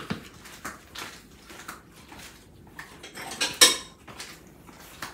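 Dishes and cutlery clinking and clattering in a string of short knocks, with a louder clatter about three and a half seconds in.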